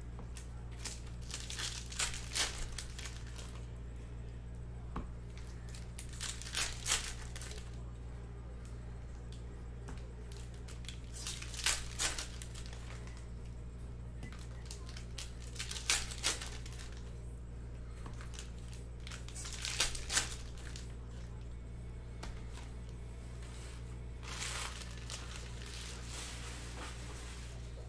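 Trading card pack wrappers being torn open and crinkled by hand, in short rustling bursts about every four to five seconds, over a steady low hum.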